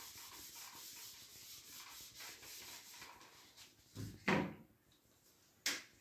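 Whiteboard eraser rubbing across the board as a drawing is wiped off, a steady scratchy sound for about three and a half seconds. Then two louder knocks of handling, and a short sharp click near the end.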